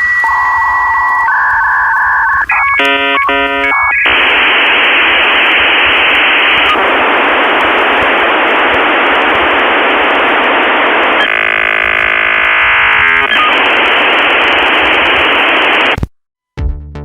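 Electronic signal tones: steady beeps and a run of quick stacked chords, then an even hiss that runs for about twelve seconds with a stretch of fast warbling partway through, cutting off suddenly near the end.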